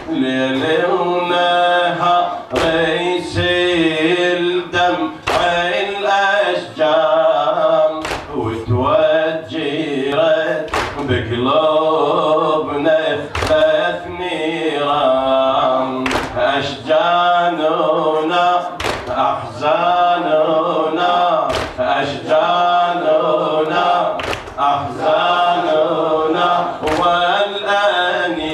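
A man chanting a mournful elegy (latmiya) through a microphone, in long wavering melodic lines. Sharp slaps fall at a steady beat about every two to three seconds, typical of the mourners' chest-beating that keeps time with a latmiya.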